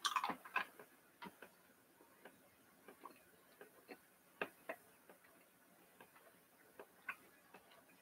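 Faint, irregular clicks and smacks of a mouth chewing jelly beans, unevenly spaced and a little sparser in the second half.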